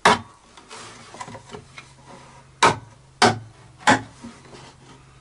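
Hammer tapping screw points into a painted plywood dust hood to start pilot holes: four sharp knocks, one at the start, then three about two-thirds of a second apart between two and a half and four seconds in.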